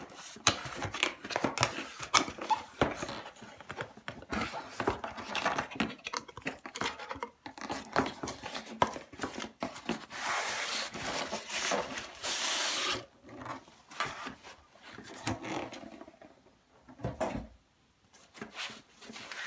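Packaging being opened by hand: irregular rustling, crinkling and tearing, with a longer continuous tearing or sliding sound about halfway through.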